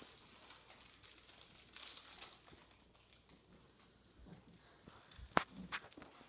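Teddy bear puppies scuffling and wrestling on a fabric blanket: a soft, continuous rustling of cloth, swelling about two seconds in. A sharp tap a little past five seconds is the loudest sound.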